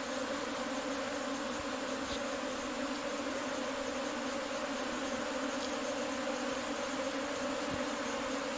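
A honeybee swarm buzzing as it moves into a hollow in a rock face, a steady, dense low hum with no change in pitch.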